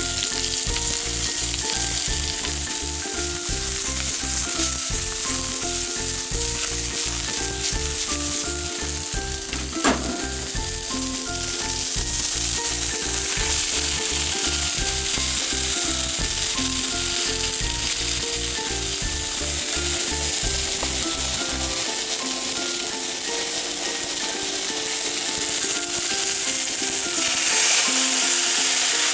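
Yakisoba ingredients sizzling in a hot steel wok: sliced sausage and onion at first, then the noodles frying, the sizzle growing louder near the end. Background music with a bass line runs under it, the bass dropping out a little past two-thirds of the way through.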